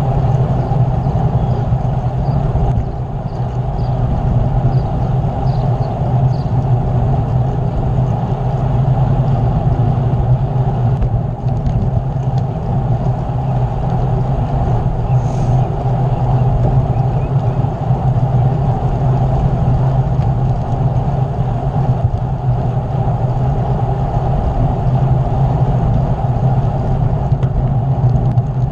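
Steady wind rush on the camera microphone while riding a bicycle, with rolling road noise beneath it.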